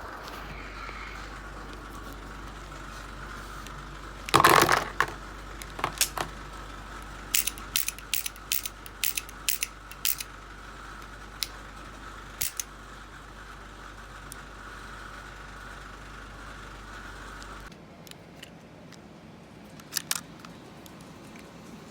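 Sharp clicks from a revolver being handled. There is a short clattering burst about four seconds in, then a quick run of single clicks over the next several seconds. A steady hum underneath cuts off near the end.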